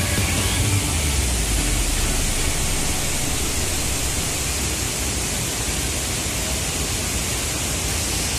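Steady rushing of a large waterfall in heavy flow, an even hiss with no change in level.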